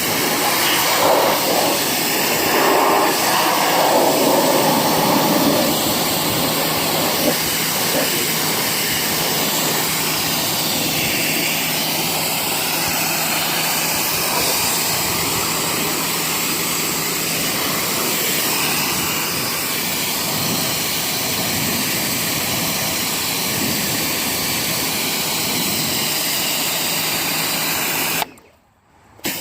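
Pressure washer running, its water jet spraying steadily against a car's body panels. The sound cuts out briefly about a second before the end.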